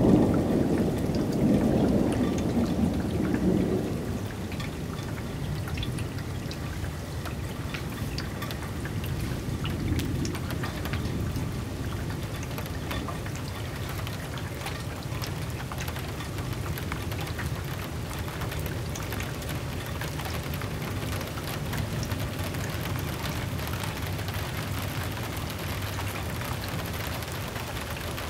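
Thunder rumbling and dying away over the first four seconds, then steady rain with scattered sharp drop hits close by.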